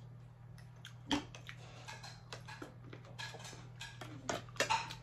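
Knives and forks clicking and scraping against plates during a meal: scattered short taps, the loudest about a second in and a cluster near the end, over a steady low hum.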